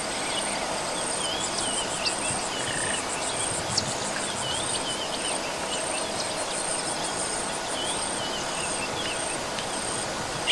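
Insects trilling steadily in a high, pulsing buzz, with faint short bird chirps scattered through it.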